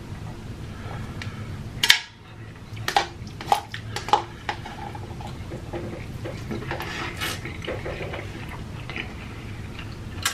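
Wooden chopsticks clicking and scraping against an instant-noodle cup, with a few sharp clicks in the first half, mixed with wet eating sounds as instant noodles are slurped and shovelled from the cup.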